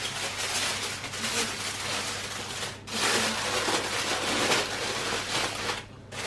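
Aluminium foil crinkling and rustling as hands wrap it tightly around a gammon joint. It pauses briefly about three seconds in, then gets louder.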